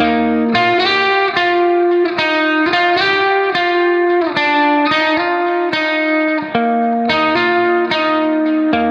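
Background music: plucked guitar notes played in a steady run, about two to three notes a second.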